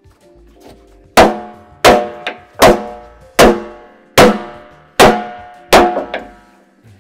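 Hammer blows on steel driving a steel wedge into the gap of an expanded seal retaining band: seven sharp, ringing strikes about three-quarters of a second apart, with a couple of lighter taps between.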